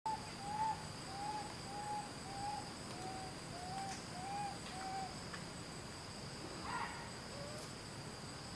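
A series of about eight short hooting calls, evenly spaced roughly two a second, each rising and falling in pitch, stopping about five seconds in, over a steady high-pitched insect drone.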